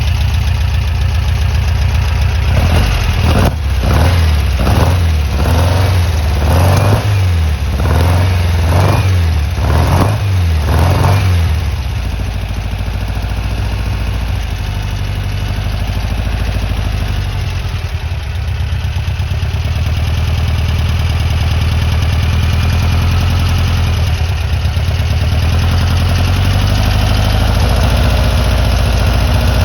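Air-cooled flat-four engine of a 1963 VW Bus, revved in short blips about once a second for several seconds, then left running at a steady idle.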